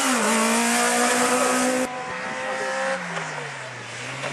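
Fiat Panda rally car's engine at high revs through a corner: the pitch dips briefly, then holds steady. About two seconds in, the sound cuts to a quieter, more distant engine note that falls in pitch and then begins to rise again.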